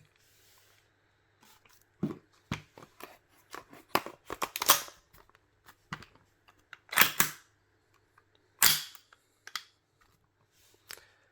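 Clicks and knocks of an airsoft gas blowback rifle's takedown pins being pushed into the receiver as the upper and lower are joined. The small clicks are broken by a few louder sharp clacks.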